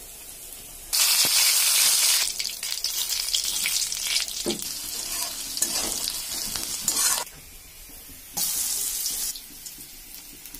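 Hot oil sizzling in a steel kadhai as sliced masala ingredients fry, with a spatula stirring and scraping the pan. The sizzle comes on suddenly about a second in and settles to a lower sizzle with spatula strokes. It drops back, then flares up again for about a second near eight seconds.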